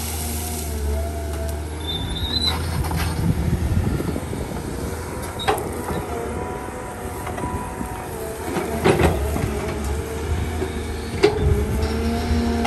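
Caterpillar hydraulic excavator working under load: the diesel engine runs steadily with a wavering hydraulic whine, and a few sharp cracks sound as brush and small trees are pushed into a pile.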